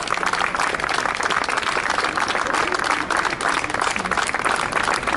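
A small crowd applauding steadily, many hands clapping.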